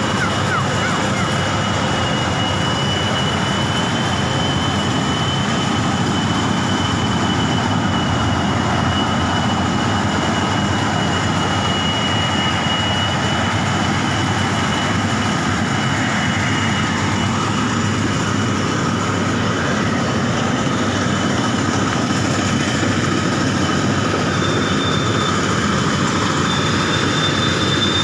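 World WS 8.0 rice combine harvester running steadily, a dense, continuous machine noise of engine and threshing gear, with a thin high whine held above it.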